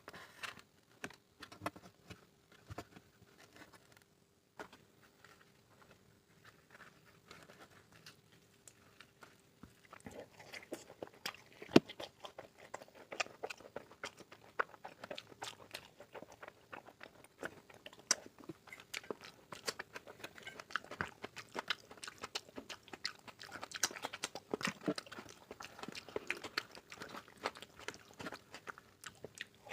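Close-miked eating of mutton curry with rice: scattered clicks and handling noises for about the first ten seconds, then continuous chewing and biting with dense, irregular mouth clicks and smacks. A faint steady hum sits underneath.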